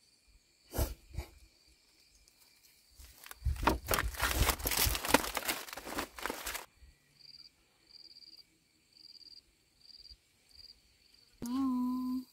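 Dry palm fronds rustling and crackling for about three seconds as a child is laid down on a bed of them, after two soft knocks about a second in. Then a high insect chirp repeats about twice a second, and a short hummed voice sounds near the end.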